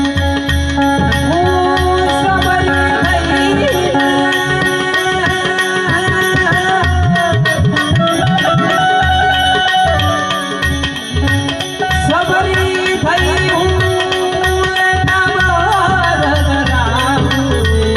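Devotional folk song in raag Bhairavi: harmonium melody and drone over a steady tabla rhythm, with a voice singing gliding, ornamented phrases. The music dips briefly a little past the middle, then carries on.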